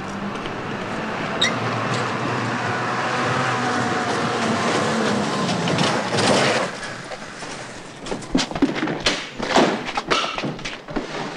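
An old box-van lorry's engine running as it drives up, growing louder for about six seconds and then dying down. After that comes a quick run of sharp knocks and thumps as people climb into the back of the lorry.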